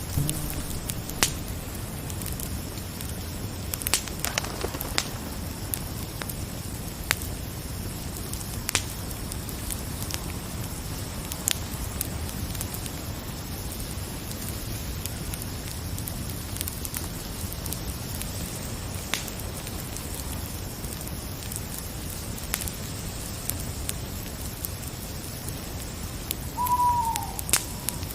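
Fire crackling: scattered sharp pops and snaps over a steady low hiss. Near the end there is one short, falling call.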